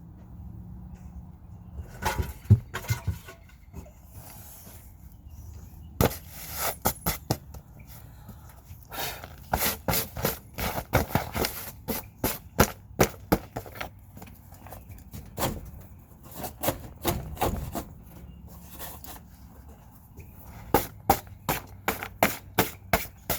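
Irregular sharp clicks and knocks from cordless power tools and their battery being handled, with quick runs of clicking in places.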